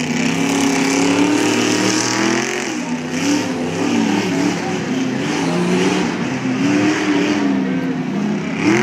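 Lifted mud-bog truck's engine revving hard as it ploughs through a mud pit, its pitch rising and falling again and again as the throttle is worked.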